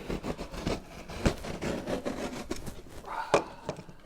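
Large cardboard shipping box being opened by hand: irregular scraping and rubbing of cardboard with sharp clicks and snaps, the loudest about a second in and again near the end.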